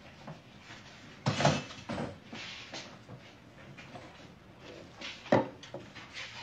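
Knocks and bumps as people move about a small room: two sharp thumps, about a second in and near the end, with softer clatter and shuffling between.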